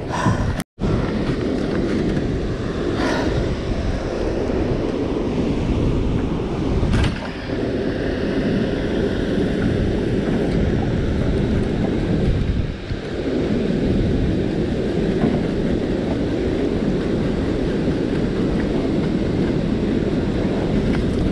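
Steady roar of water released through a dam spillway's flood gates, churning the tailwater, mixed with wind buffeting the GoPro microphone.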